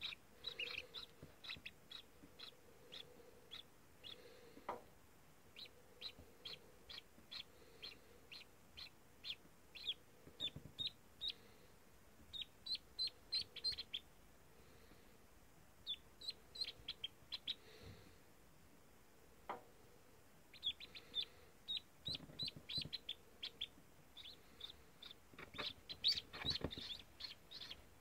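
Freshly hatched ducklings peeping: short, high peeps in quick runs of about three or four a second, with pauses between runs. A few louder rustles and knocks come in twice near the end, the loudest about two seconds before the end.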